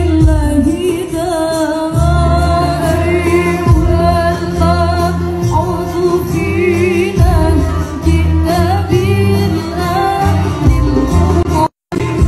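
Choir of young women singing into microphones over a steady bass backing, amplified through a PA system. The sound cuts out completely for a moment near the end.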